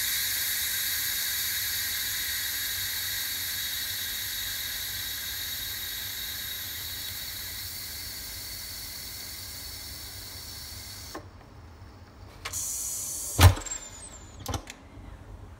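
Electric pressure cooker's steam release valve venting the remaining pressure in a steady hiss that slowly fades and cuts off about eleven seconds in. Then the lid clicks and knocks as it is turned to unlock, with one sharp clunk near the end.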